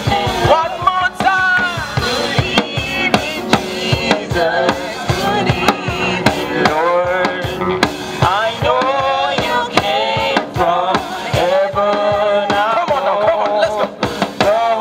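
Live gospel praise music: a steady drum beat under keyboard and wordless, gliding vocal runs.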